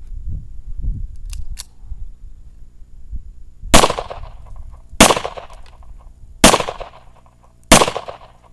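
Four 9mm pistol shots about a second and a half apart, each trailing off briefly.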